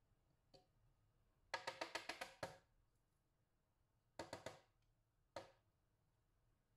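Garlic clove grated on a handheld metal grater: a quick run of about eight short scraping strokes, then a shorter run of strokes and a single stroke.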